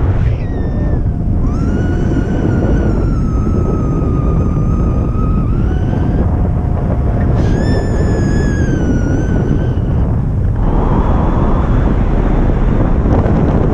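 Wind buffeting the microphone in a loud, steady rumble, with two long whistling tones that waver and sag slightly in pitch, one starting about a second and a half in and another about seven seconds in.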